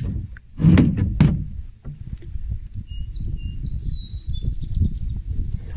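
Two loud knocks about a second in, over a low wind rumble on the microphone; then a bird calls with several short whistled notes and a falling whistle.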